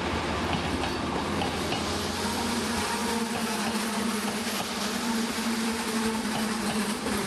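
Passenger train carriages rolling past along the platform: a steady rumble of wheels on rail with a steady hum that stops near the end.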